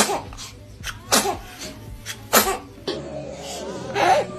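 A baby sneezing: three short, sharp sneezes about a second apart, then another short burst near the end.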